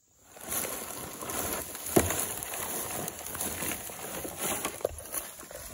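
Walk-behind broadcast spreader pushed over mown grass, its wheels and spinner mechanism rattling and clicking, with a sharp knock about two seconds in.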